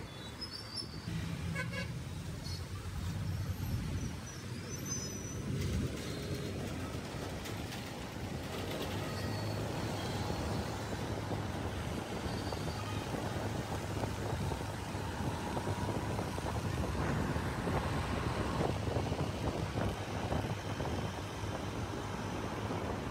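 Busy city road traffic: the steady rumble of truck, auto-rickshaw, car and motorcycle engines and tyres, with a few short horn toots.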